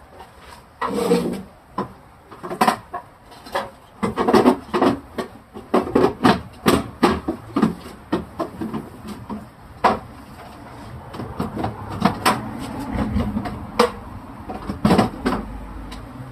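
Groceries and containers being put back into a refrigerator: an irregular run of knocks, clatters and scrapes as items are set on the shelves and moved about.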